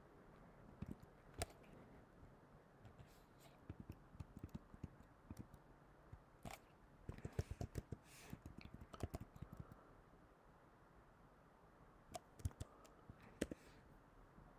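Faint computer keyboard keystrokes and clicks, coming in a few short runs of typing with single clicks between them, as answers are typed into a crossword grid.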